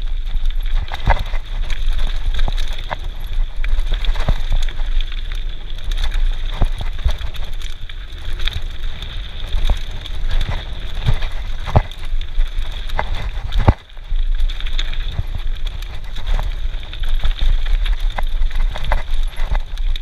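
Mountain bike riding fast down a dirt trail, heard from a camera on the bike: a steady rumble of wind on the microphone and tyre noise, with frequent sharp clicks and knocks as the bike rattles over bumps.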